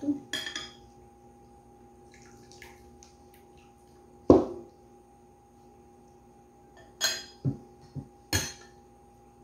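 Ceramic bowls and metal spoons clattering: a loud knock as a bowl is set down about four seconds in, then three or four sharp clinks of a spoon against a bowl near the end.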